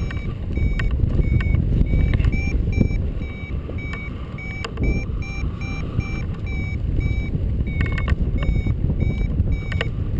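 Wind rushing over the microphone in flight, with a paragliding variometer beeping in short, evenly spaced high beeps. The steady beeping is the vario signalling that the glider is climbing in lift.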